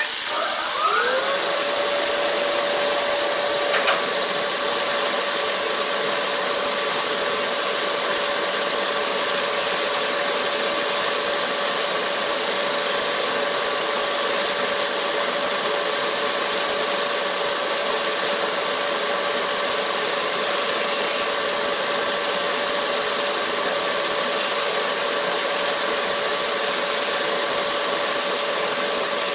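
Bench polishing machine running: its motor spins up over the first second to a steady whine, with the even rushing noise of the spinning buffing wheels as a small steel sewing-machine part is held against one.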